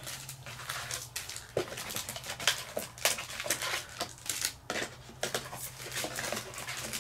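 Foil Pokémon booster packs handled and counted by hand, crinkling with quick irregular clicks and rustles over a low steady hum.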